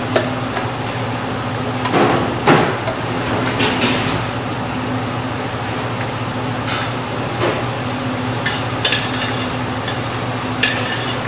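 Metal utensils clinking and scraping against a stainless steel tray and pot, in scattered short knocks, over the steady low hum of kitchen machinery.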